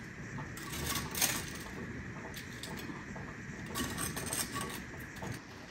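Metal kitchen tongs clicking and tapping as fried chicken tenders are picked up and set down on a metal serving platter: a few light, scattered clicks.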